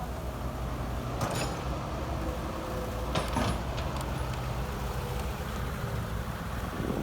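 Diesel engine of heavy earthmoving equipment running steadily, with two sharp metallic clanks about one and three seconds in.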